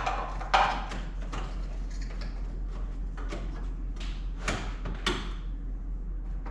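Handling noise from a plastic wiring harness and its connectors at the fuse box: a few sharp clicks and scrapes, spaced irregularly, over a steady low hum.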